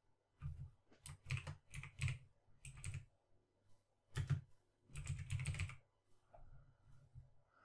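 Typing on a computer keyboard in two short runs of quick keystrokes, with a brief pause between them.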